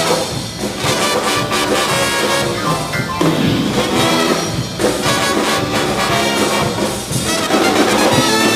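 Brass-band music with trumpets and trombones playing together in a jazzy style, loud and continuous.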